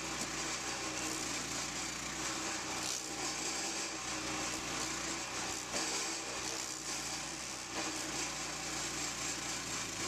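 Forest King stump grinder's engine running steadily under load while its toothed cutter wheel grinds into a black walnut stump, a constant engine note under a dense spray of chipping and grinding noise with occasional sharper crackles.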